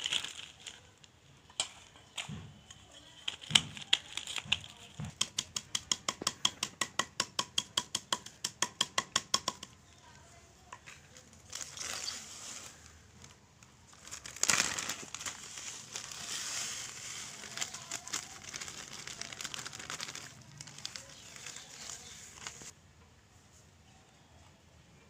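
Oreo biscuits being crushed in a plastic zip-lock bag by knocking it with a plastic dish against a wooden table, an even run of sharp knocks at about four a second. Afterwards the plastic bag crinkles and rustles for several seconds as the crumbs are handled and shaken out.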